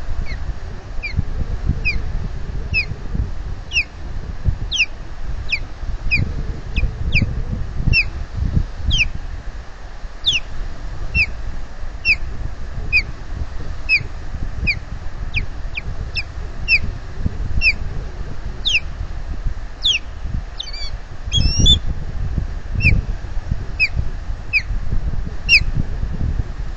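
Osprey calling a long series of short, high whistled chirps, about one a second, with a brief more broken call about three-quarters of the way through. Gusty wind rumbles on the microphone underneath.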